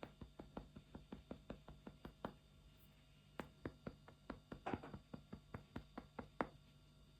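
Faint, quick tapping on a hard surface, about five taps a second; it pauses for about a second, then resumes and stops shortly before the end.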